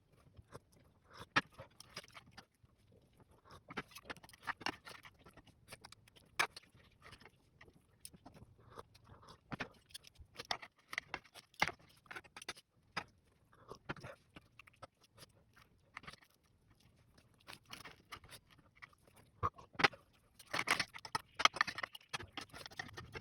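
Irregular light clicks, taps and clatter of kitchenware being handled, busiest near the end.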